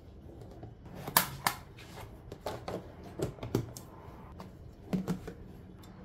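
Sharp plastic clicks and knocks, mostly in quick pairs, of a clear lid being pressed and snapped onto a plastic food storage container.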